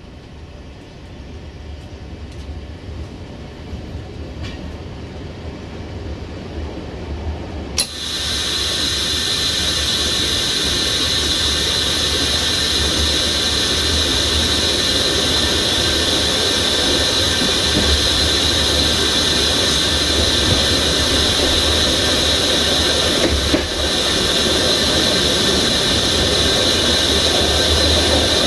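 Train wheels squealing on the rails: a loud, steady high-pitched squeal that starts suddenly about eight seconds in, over the rumble of the train gathering speed.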